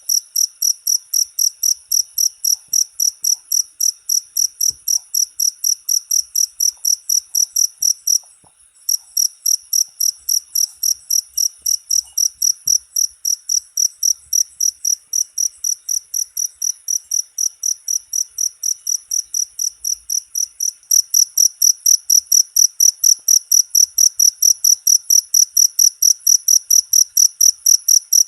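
Cricket chirping in an even, rapid high-pitched pulse, about three to four chirps a second. It breaks off for half a second about a third of the way in, then resumes and grows louder near the end.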